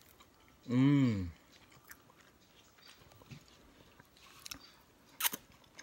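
A short appreciative 'mmm' about a second in, then quiet chewing of a mouthful of pan-fried shad, with faint mouth noises and small clicks and one sharp click near the end.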